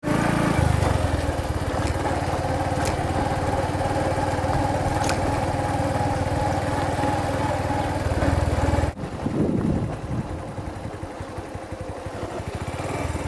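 A vehicle driving on a dirt road: steady engine and road rumble, loud and even, which drops sharply about nine seconds in to a quieter, uneven rumble.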